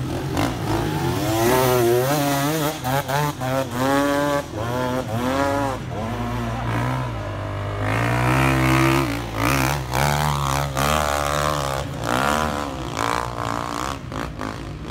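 Enduro dirt bike engine revving hard in quick repeated bursts, pitch rising and falling as the throttle is opened and shut again and again, over a steadier low engine drone.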